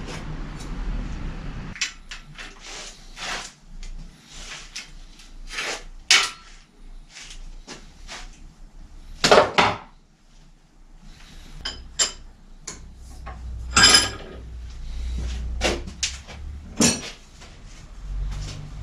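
Metal hand tools and bike parts being handled on a workbench: a string of irregular clinks and clatters, with a few louder ringing clanks about nine, fourteen and seventeen seconds in.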